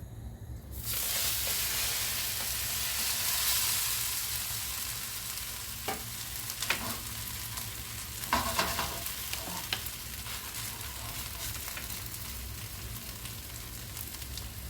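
Grated-potato hash brown sizzling in hot oil in a frying pan, the sizzle starting suddenly about a second in as it goes back into the pan. A few sharp clicks of a utensil on the pan come midway.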